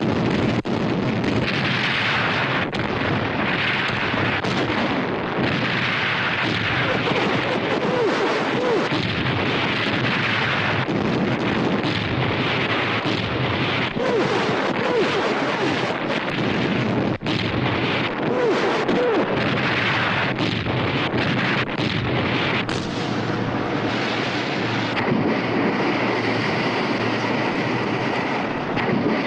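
Battle sounds: repeated gunshots and explosions over a dense, continuous rumble.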